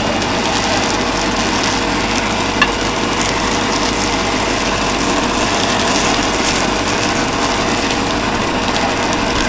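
Motor-driven blower running steadily, forcing air into a blacksmith's forge fire: a constant hum over a steady rush of air through the burning coals. One sharp tick about two and a half seconds in.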